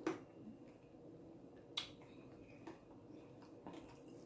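Faint eating sounds from a bowl of berries and granola in coconut water: a few short, sharp clicks, the two strongest at the start and about two seconds in, over a faint steady hum.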